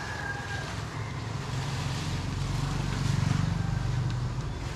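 An engine running steadily with a low hum, swelling louder from about two seconds in and easing off near the end.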